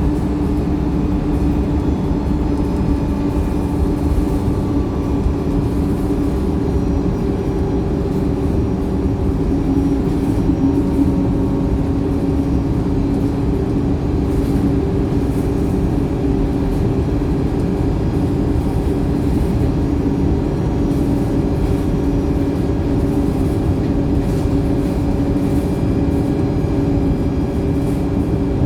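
Wright StreetLite single-decker bus heard from inside the cabin while under way: a steady engine and drivetrain drone with a constant hum over low rumble. The uploader calls this engine tired.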